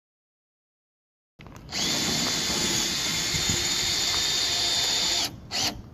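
Cordless drill driving a 1 1/2-inch hex-head self-drilling screw into galvanized sheet steel. The drill starts about a second and a half in, runs steadily for about three and a half seconds, stops, then gives one short burst.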